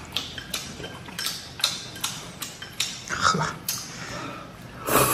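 Chopsticks clicking against a porcelain bowl several times while a man eats, with a short exhaled "heh" a little after three seconds in.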